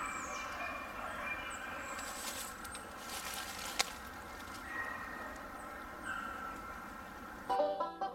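A pack of beagles baying on the trail of a rabbit they have just jumped, the calls coming in short held notes. Small birds chirp high over them, a single sharp click sounds about four seconds in, and banjo music comes in near the end.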